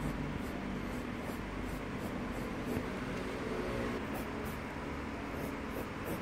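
Graphite pencil scratching on paper in a run of short, quick hatching strokes, a few a second, over a steady low background hum.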